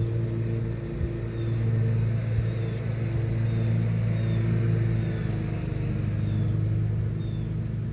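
Boat motor running at a steady speed, a low, even hum.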